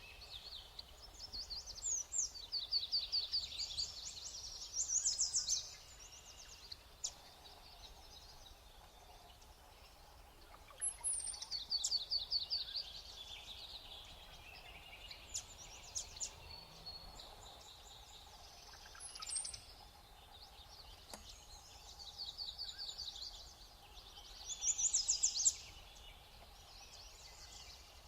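Small songbirds calling and singing in short bursts of quick, repeated high notes, about six bursts separated by quieter stretches. A faint steady hum lies underneath.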